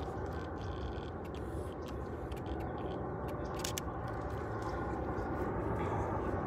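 Steady jet rumble of an Asiana Cargo Boeing 747 on approach with its gear down, slowly growing louder as it nears. Scattered small clicks of handling noise on the microphone.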